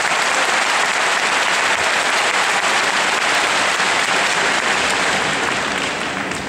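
Large arena crowd applauding, a dense steady wash of clapping that eases off near the end.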